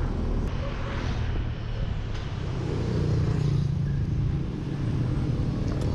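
Motor scooter engine running while riding through city traffic, with road and wind noise; the engine note grows a little stronger about three seconds in.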